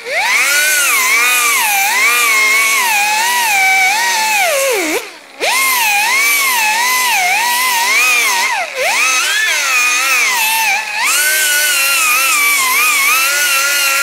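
Pneumatic right-angle die grinder with a ceramic abrasive disc grinding the mill scale off steel angle iron down to bare metal for welding. A whine whose pitch dips and rises as the disc is pressed into the steel, cutting out briefly about five seconds in and dipping again near nine seconds.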